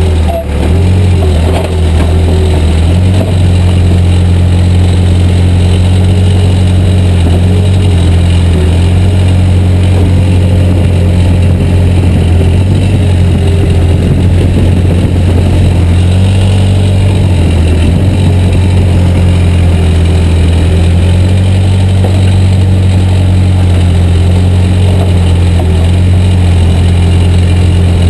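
Backhoe's diesel engine running steadily and loudly under hydraulic load as it cuts tree roots. Its note shifts slightly a few times as the load changes.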